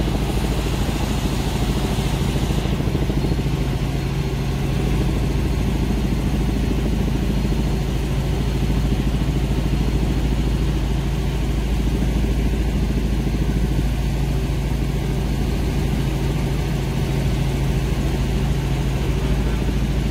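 Helicopter engine and rotor drone, steady and unchanging, with a hiss laid over it for the first couple of seconds.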